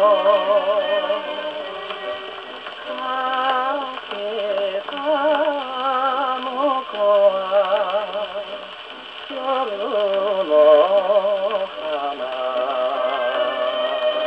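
A 1948 Columbia 78 rpm shellac record of a Japanese popular song plays on a portable wind-up gramophone. A man sings with strong vibrato. The sound is thin, with no deep bass.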